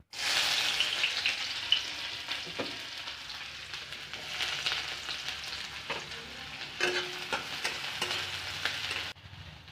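Chopped onions sizzling loudly in hot mustard oil in a pan. The hiss starts suddenly, is loudest at first and then eases, with a few clinks of a spoon against the pan, and it drops much quieter near the end.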